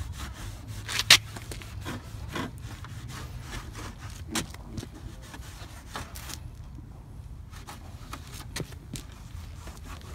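Cloth rag dampened with rubbing alcohol being wiped along the underside of a car's plastic front bumper in short, irregular rasping strokes, cleaning the surface before adhesive tape goes on. One sharp knock about a second in is the loudest sound.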